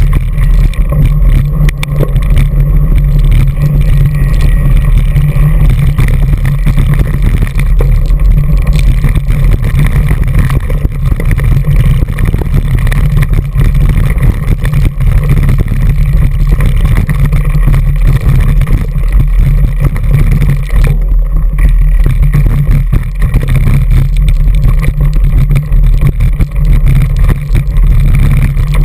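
Handlebar-mounted GoPro Hero2 on a full-suspension Orange 5 Pro mountain bike riding fast over rocky gravel singletrack: a loud, constant low rumble of wind and vibration on the camera, with dense rattling and clatter from the tyres and bike over the stones.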